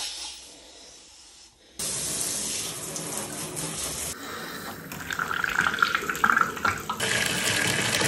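Water running into a bathtub to fill it, a steady rushing that starts suddenly about two seconds in and changes in tone twice.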